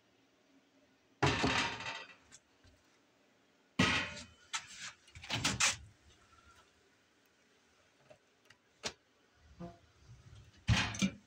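Oven door and metal parts of a camper's gas range being opened and handled: several short rattling clatters with quiet gaps between them, and a single sharp click near the end.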